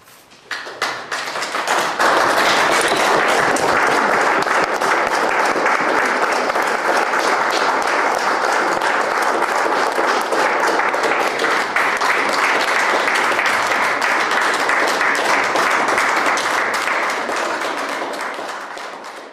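Small crowd applauding with hand claps, swelling over the first two seconds and tapering off near the end.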